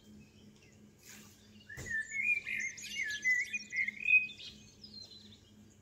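A bird calling: a run of quick, wavering chirping notes that starts with a short click about two seconds in and lasts about two and a half seconds, over a faint steady low hum.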